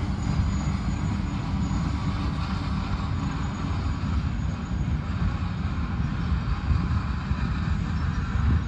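Freight train cars rolling past close by: a steady low rumble of steel wheels running on the rails as covered hoppers and centerbeam flatcars go by.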